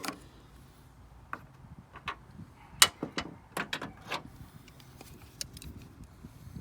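Plastic cap over a Volvo XC90's front strut mount being pried off with a tool: a series of sharp clicks and snaps, the loudest about three seconds in.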